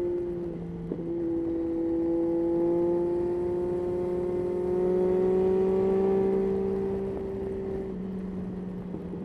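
Yamaha Tracer 9's 890 cc inline-three engine pulling under way. Its note dips briefly about a second in, rises slowly and steadily as the bike gains speed, then drops back near the end.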